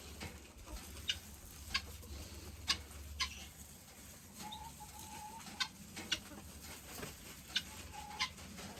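Chickens clucking, with two short held calls, one about halfway through and one near the end, and about nine sharp clicks scattered throughout.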